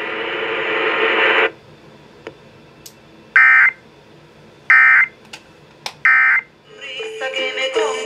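Weather radio speaker: about a second and a half of static hiss, then three short, equally spaced buzzy data bursts about 1.3 s apart, the Emergency Alert System end-of-message code that closes a broadcast warning. Music from the radio starts near the end.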